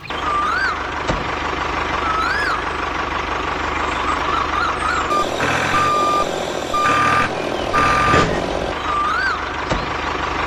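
Electronic warning beeps like a vehicle's reversing alarm: three long beeps about a second apart in the middle, over a steady mechanical hum and a chirping tone that rises and falls about every two seconds.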